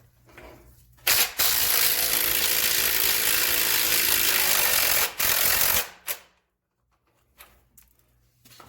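Impact wrench hammering on the nut of the lower rear shock absorber bolt to break it loose: a short burst about a second in, then a steady rattle for about four and a half seconds that stops abruptly.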